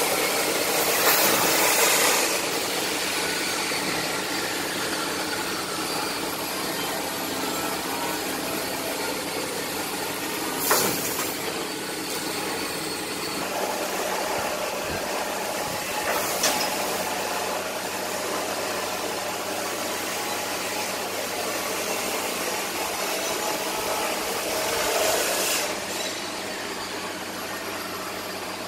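Steady hum and hiss of a CNC laser cutting machine running, with a few brief sharp knocks.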